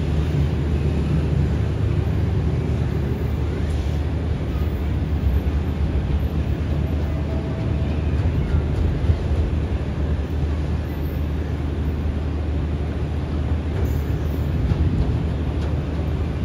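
Chinese-built ZCU-20 diesel locomotive running as it comes slowly into the station, a steady low engine rumble.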